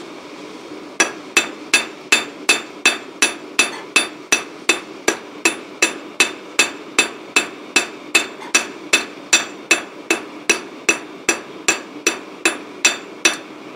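Hand hammer beating hot steel (a piece of cut-off spanner) on a rusty sledgehammer head used as an anvil, in steady blows of about three a second starting about a second in, each with a metallic ring. The steel is being beaten out into a small, shallow spoon. A steady low hum runs underneath.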